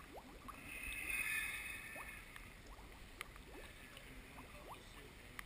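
Pond water gurgling, with many small bubble chirps that each rise quickly in pitch, and a rushing hiss that swells and fades about a second in.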